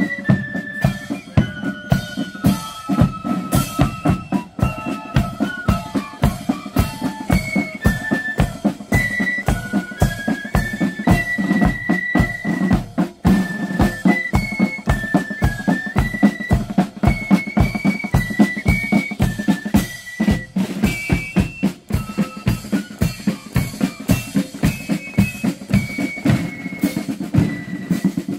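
Marching flute band playing: flutes carry a high single-line tune over side drums and a bass drum beating a steady march rhythm.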